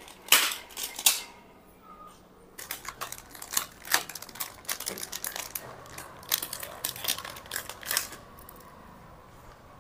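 A wet clear polythene bag crinkling and crackling in irregular bursts of small clicks as hands pull it off a helmet-mounted GoPro.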